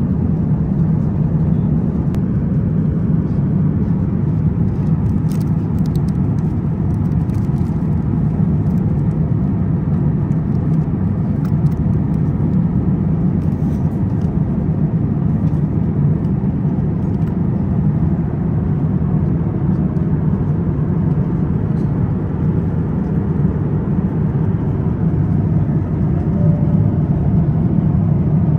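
Steady low rumble of an Airbus A350-1000 airliner cabin in cruise, engine and airflow noise, with a few faint clicks from the meal tray and its packaging.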